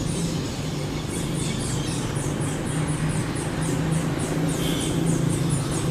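A steady low engine hum, with a rapid series of short, high, falling chirps, about five a second, from an insect or bird.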